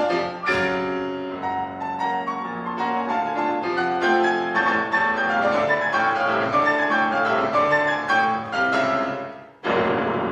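Solo grand piano played live: a flowing run of notes. About nine and a half seconds in the playing breaks off briefly, then a loud, dense chord is struck and left ringing.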